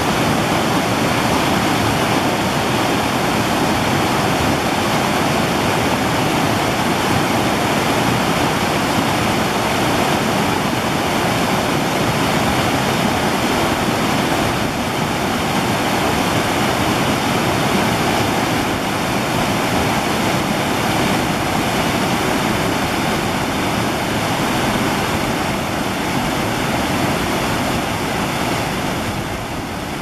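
Whitewater cascade tumbling over boulders in a rocky creek: a loud, steady rush of water that eases slightly near the end.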